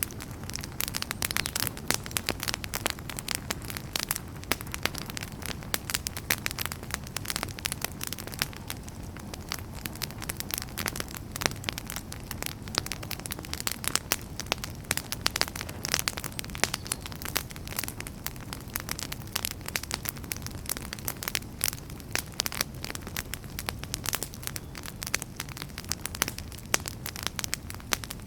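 Wood fire burning in a fireplace: dense, irregular crackles and pops of burning logs over a steady low rumble of the flames.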